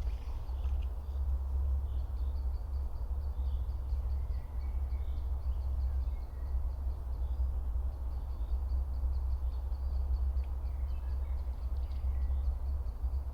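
Oak-forest ambience: a steady low rumble, the loudest sound, under scattered bird calls. A fast, even series of high ticks starts about two seconds in and runs through most of the rest.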